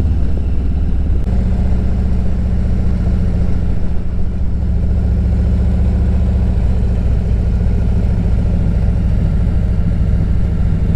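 Engine of a road vehicle running steadily while under way, with a low rumble of road and wind noise.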